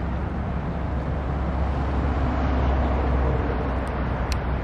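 Low, steady rumble of a diesel locomotive (a KLW SE15B leading a SEPTA rail train) crossing a railway bridge in the distance, mixed with wind noise on the microphone. The rumble swells a little midway, and a brief sharp click comes near the end.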